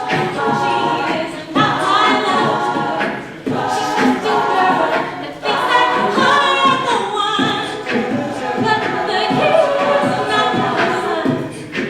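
An a cappella vocal group singing in harmony, several voices together with no instruments.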